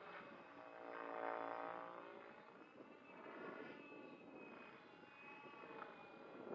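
Radio-controlled 3D helicopter in flight, its motor and rotor whine swelling to its loudest about a second in, then fading. Its pitch rises and falls as it manoeuvres.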